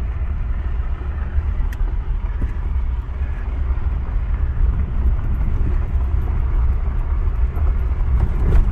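Vehicle driving slowly down a dirt road, heard from inside the cab: a steady low rumble of engine and tyres on the rough surface.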